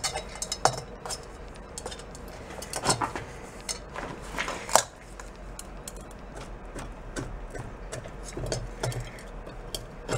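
Chrome-plated steel headlight bucket being handled and repositioned at a bench vise: scattered light metallic clinks and taps, the sharpest about five seconds in.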